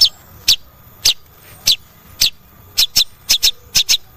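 Long-tailed shrike giving short, sharp, high call notes, one about every half second, coming quicker and in pairs near the end.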